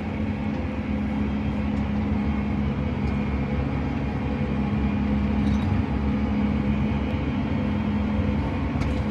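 John Deere 8RX 410 tracked tractor running at road speed, heard from inside its cab: a steady engine and drivetrain drone with a constant low hum.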